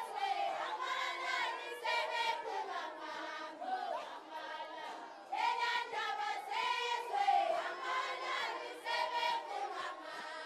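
A large group of voices singing a traditional Swazi chant together in short repeating phrases.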